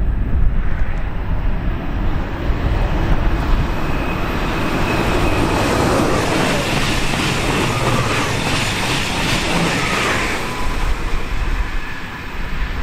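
Electric multiple-unit regional train passing close along a platform: rushing of wheels on rail and air, with a faint whine from the traction motors that swells and peaks midway, then fades. Low wind rumble on the microphone underneath.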